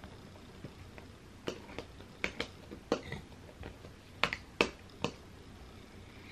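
Scattered sharp clicks and crackles of food being handled in a clear plastic takeout tray, about eight in all, most of them bunched in the middle.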